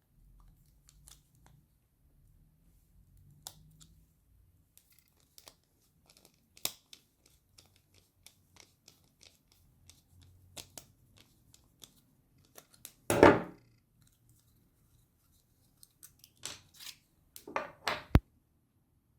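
Hand work on a cordless drill battery pack: scattered light clicks and taps, with a loud scraping, tearing burst about thirteen seconds in and a couple more near the end.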